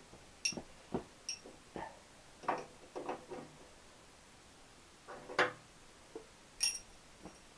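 Scattered metallic clicks, clinks and light knocks of tools and metal parts being handled during motorcycle reassembly, a dozen or so irregular strikes, a few with a short bright ring.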